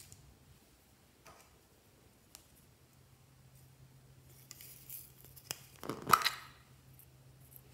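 Small plastic container handled and its lid snapped open, with a few light clicks and a rustle first and a sharp plastic pop and rattle about six seconds in.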